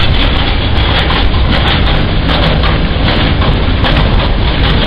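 Freight train of loaded steel-coil wagons rolling past on the rails: a loud, steady rumble of wheels and wagons with no break.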